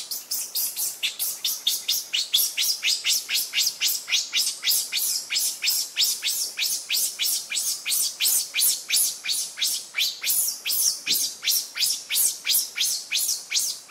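A high-pitched chirping call repeated rapidly and evenly, about three to four chirps a second, each one sweeping downward.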